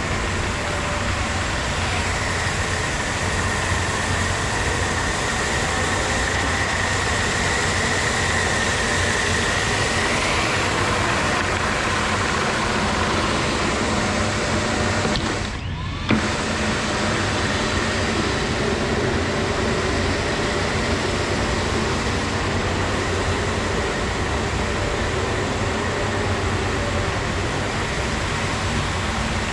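Tennant 5700 36-volt walk-behind floor scrubber running: a steady whir of its electric vacuum and scrub-brush motors as it picks up water from the floor, with a high whine for several seconds in the first third. The sound dips briefly about halfway through, then a click.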